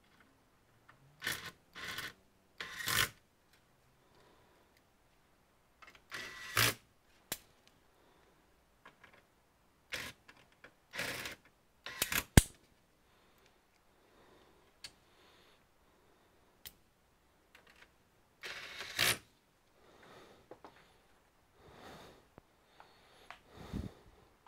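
Intermittent handling noises from computer parts being worked on: short scrapes and rustles of plastic and metal, with a few sharp clicks, the sharpest about twelve seconds in.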